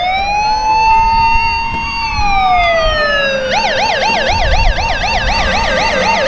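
Electronic police siren: a slow wail that rises, holds and falls, switching about three and a half seconds in to a fast yelp warbling about three times a second, then back into a wail near the end.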